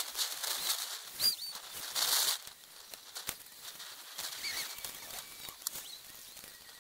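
Short, irregular bursts of rustling hiss with a couple of faint bird chirps and a single light knock a little after three seconds in.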